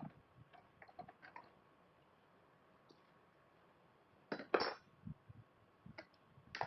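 Light scattered clicks and clinks of small repair tools on an iPhone 11's back glass and frame, with a louder short cluster of clicks about two-thirds in.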